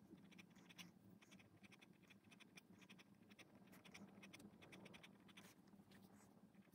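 Drawing pen hatching ink lines on sketchbook paper: faint, quick scratching strokes in rapid runs, over a faint steady low hum.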